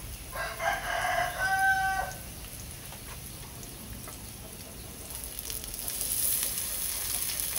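A rooster crows once, a drawn-out call of nearly two seconds near the start. Oyster mushrooms sizzle in a little oil in a nonstick pan, the frying hiss growing louder in the second half as they are turned with chopsticks.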